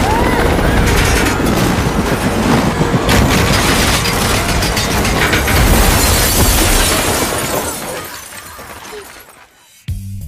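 Film sound effects of an earthquake: a heavy low rumble with crashing and shattering debris. It fades away from about eight seconds in, and music starts just at the end.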